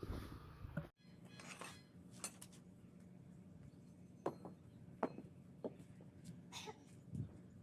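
Faint, scattered clinks and knocks, several sharp ones a second or so apart, over a low steady hum.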